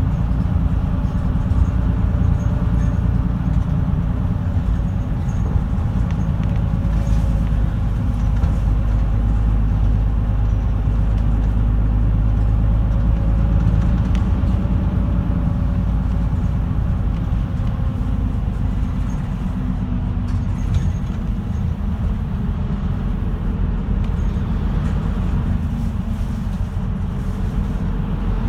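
Route bus driving, heard from inside the passenger cabin: a steady engine drone and road rumble, the engine pitch drifting slightly up and down.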